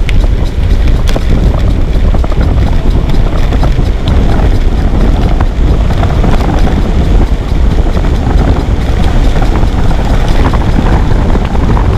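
Wind rumble buffeting the microphone of a moving bicycle, with scattered clicks and knocks from the bike rattling over a rough road.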